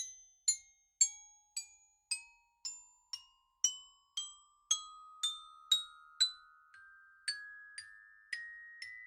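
Intro music of single bell-like struck notes, glockenspiel-like, about two a second, each ringing and fading before the next.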